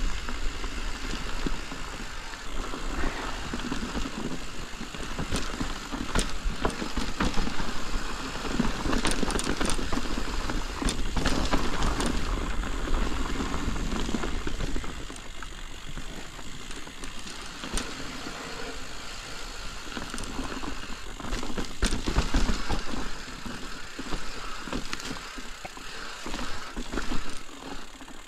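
Mountain bike being ridden downhill over a loose, rocky dirt trail: tyres crunching on dirt and stones, the bike knocking and rattling over the rocks, and a low rumble of wind on the microphone.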